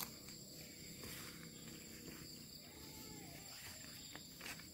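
Faint steady chirping of crickets, with soft footsteps on a dirt path.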